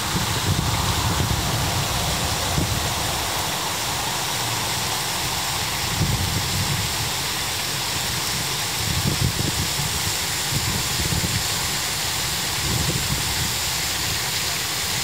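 Chedoke Falls, a thin waterfall spilling down a rock face, making a steady rush of falling and splashing water, with irregular low rumbles underneath.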